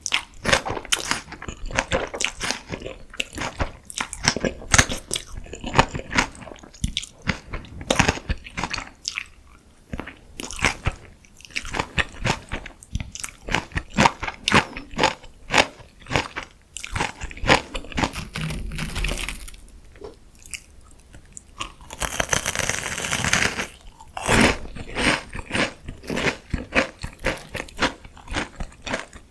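Close-miked eating sounds: biting and chewing crunchy food, many crisp crunches in quick succession. About two-thirds of the way through there is a longer noisy stretch lasting about two seconds.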